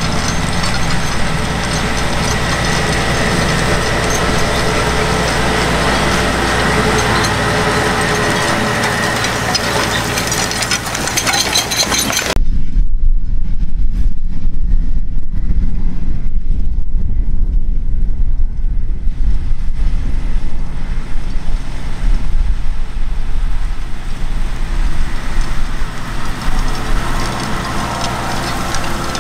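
Claas Xerion 12.650 track tractor's diesel engine running steadily under load while it pulls a Kelly chain disc harrow. About 12 seconds in, the sound cuts abruptly to a loud low rumble with little else. Over the last few seconds the tractor and harrow noise builds again as the rig comes close.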